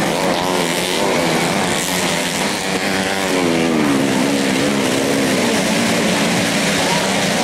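Modified four-stroke 125 cc underbone race motorcycles running hard on a dirt track, their engine notes rising and falling as the riders work the throttles, with more than one bike heard at once.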